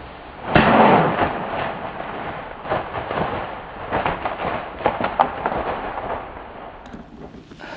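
Whitetail buck bolting off through dry fallen leaves and brush after the arrow hits: a sudden burst of crashing and rustling about half a second in, fading into scattered crunches and snaps over several seconds.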